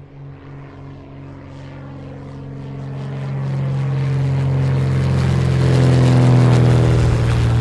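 Light propeller airplane engine droning as the aircraft approaches, growing steadily louder toward a peak near the end. The pitch dips slightly as it passes.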